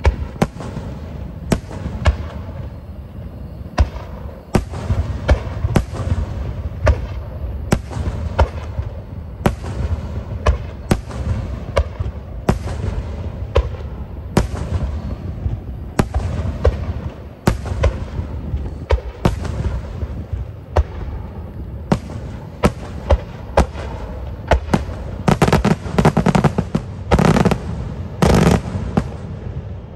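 Starmine fireworks barrage: aerial shells bursting in rapid succession, sharp bangs about once or twice a second over a continuous low rumble. Near the end comes a denser run of crackling bursts.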